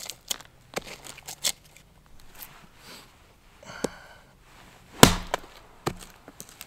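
Small axe splitting a round of firewood stood on end. A few light wooden knocks as the round and blade are set, then two sharp chopping blows about a second apart, the first the louder.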